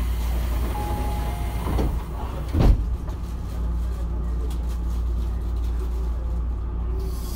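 Inside a Tobu 9050 series electric commuter train car (motor car MoHa 9552): a steady low rumble of the train, with a short loud thud about two and a half seconds in.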